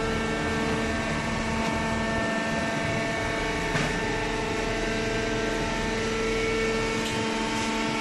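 Hydraulic baler's power unit running: a steady machine hum with several held tones over it, the pattern of tones shifting slightly but the level staying even.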